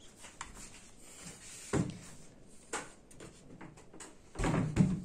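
Table saw being slid along its wooden rail: wood scraping and knocking on wood, with a few sharp knocks and a louder knocking scrape near the end.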